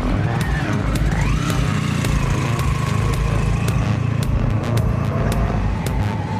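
Motorcycle-and-sidecar outfit's engine revving up as it pulls away about a second in, then running at a steady speed.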